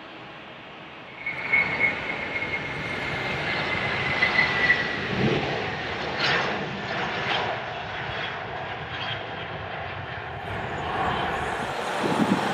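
Airbus A330-300 airliner's jet engines spooling up to takeoff thrust about a second in, a high whine over a loud roar, carrying on through the takeoff roll and lift-off.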